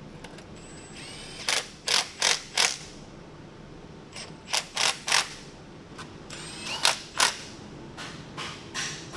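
Hand ratchet wrench ratcheting in short bursts of strokes, a few quick strokes at a time and then a steady run of about three a second near the end, as the bolts holding the transmission's mechatronic valve body unit are run in.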